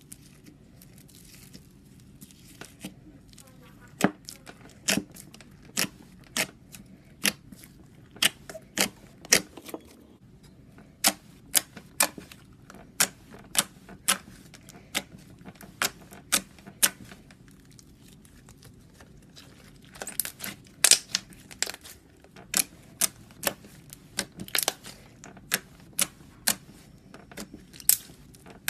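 Slime being poked and pressed by hand, making a series of sharp clicks and pops, roughly one a second, as air pockets squeeze out. There is a louder, denser crackly stretch about two-thirds of the way through.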